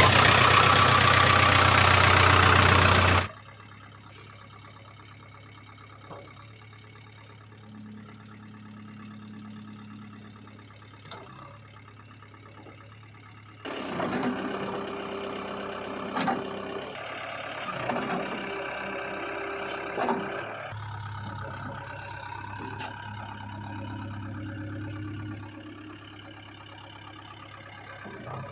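Diesel engine sounds of a backhoe loader and tractor. A loud, full-range burst for about the first three seconds cuts off suddenly, leaving a low engine idle. From about halfway through, busier engine sound with several sharp clicks sets in, and it eases back near the end.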